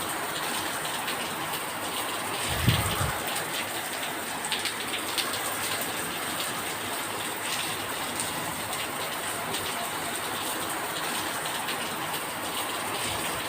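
Steady rain falling and pattering, with scattered drops ticking, and a single low thump about two and a half seconds in.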